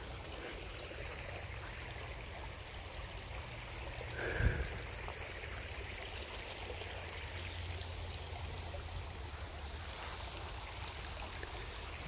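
A shallow creek running with a steady trickle, with one brief thump about four seconds in.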